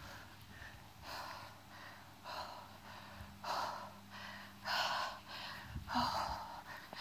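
A person breathing close to the phone's microphone, about five breaths at a steady pace of roughly one a second.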